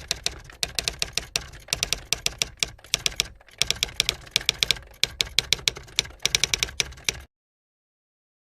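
Typewriter keys clacking quickly, about five strokes a second in runs broken by short pauses, stopping abruptly about seven seconds in.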